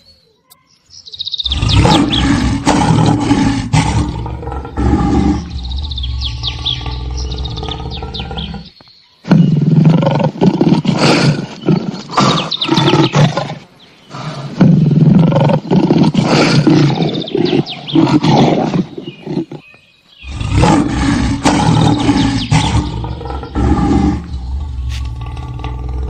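Lion roar and growl sound effects laid over the picture, coming in three long stretches separated by brief gaps, starting about a second and a half in.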